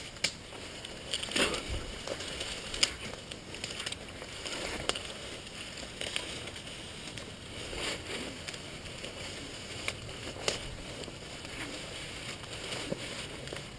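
Thick undergrowth and nettle stems rustling and snapping as people push through on foot: an irregular swishing and crackling with scattered sharper snaps.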